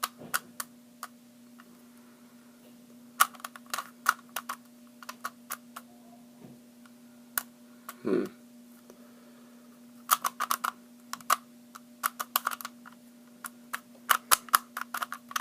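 Rubik's cube layers being twisted by hand: quick plastic clicks and clacks in irregular bursts with short pauses between them, over a faint steady hum.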